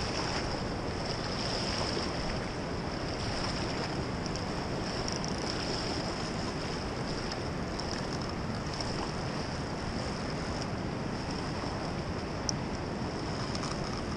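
Steady rushing noise of a fast-flowing river mixed with wind buffeting the camera microphone.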